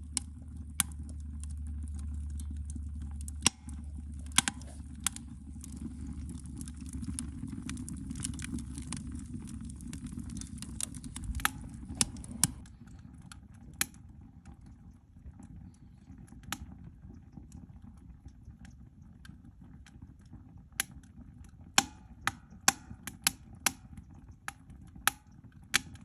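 Wood fire burning in a small hexagonal wood stove, crackling with irregular sharp pops and snaps. A low rumble underlies the first half and drops away about twelve seconds in.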